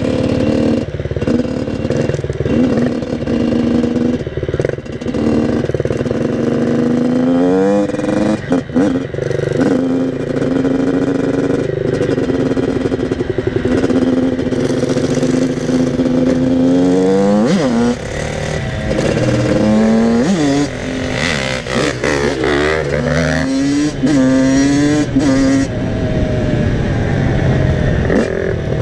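Yamaha YZ85 two-stroke dirt bike engine revving up and down through the gears on the move, with a second dirt bike's engine running alongside. The pitch climbs in sharp sweeps several times, most busily past the middle.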